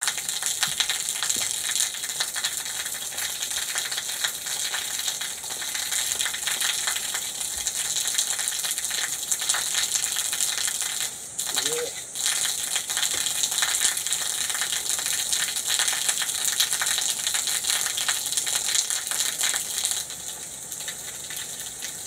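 A thin waterfall pouring down a stone wall and splashing onto the rocks and a person standing under it: a steady rush of splashing water. It dips briefly a little before halfway.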